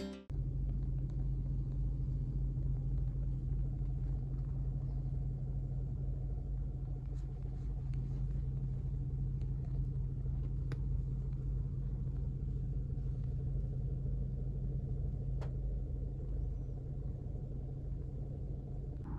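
Car engine idling steadily, heard from inside the car as a low, even hum, with a couple of faint ticks partway through.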